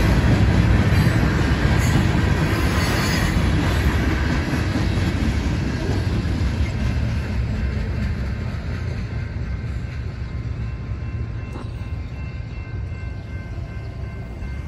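Last cars of a CSX freight train rolling over a grade crossing, a low rumble with wheel clatter. It fades away over the first several seconds as the end of the train passes.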